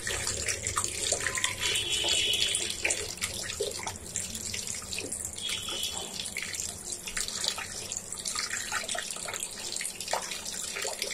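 Tap water running into a glass bowl of raw goat meat in a stainless steel sink, with irregular splashing as a hand rubs and turns the pieces to wash them.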